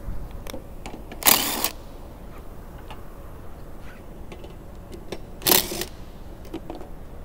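Cordless impact wrench run in two short bursts, about four seconds apart, undoing the nuts that hold the windshield wiper arms, with light clicks in between.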